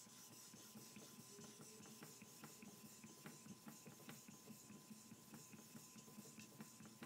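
Faint, steady back-and-forth rubbing of a kanna (Japanese plane) blade in a honing guide on a suita natural whetstone with clear water and no slurry, each stroke giving a soft scrape in an even rhythm.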